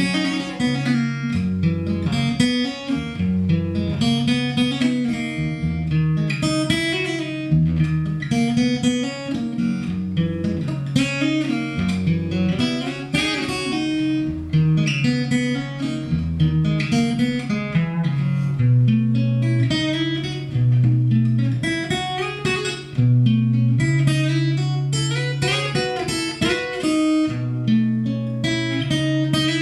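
Solo acoustic guitar, fingerpicked: an instrumental piece with held bass notes under a plucked melody.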